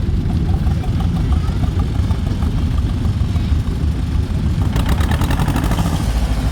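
Tractor engines running with a steady low rumble. About five seconds in, a rapid, even popping exhaust comes up close.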